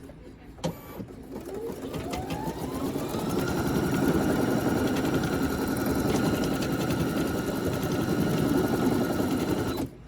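Brother SE1900 embroidery machine stitching out a design: after a few clicks it speeds up with a rising whine, runs steadily with rapid needle chatter, then stops abruptly near the end. The fabric is hooped without stabilizer, so the stitch-out is going wrong.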